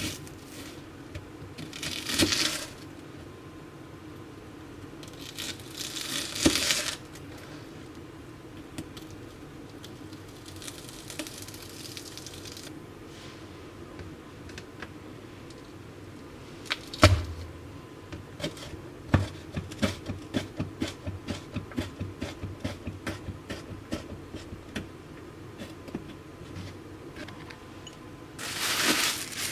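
Handling sounds: three short rustling, crinkling bursts, then a sharp knock and a long run of quick light taps.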